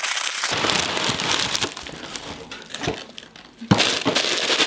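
A cardboard cereal box being opened and its plastic inner bag crinkling as it is pulled out, with a sudden louder crinkle near the end.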